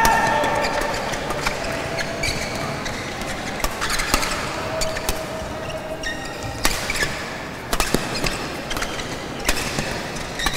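Badminton rackets striking a shuttlecock again and again in a fast doubles rally, sharp irregular hits over the steady murmur of an indoor hall.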